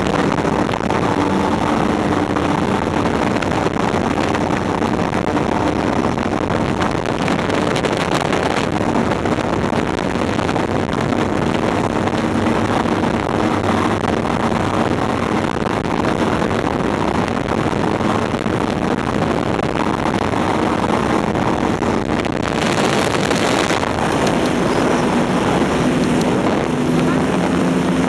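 Tullio Abbate speedboat running flat out, its engine note steady under the rush of wind on the microphone and water against the hull. About 22 seconds in, a louder hiss rises for a second or so.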